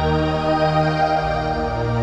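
Instrumental worship music: sustained keyboard or organ-like chords, with the bass moving to a lower note a little past the middle.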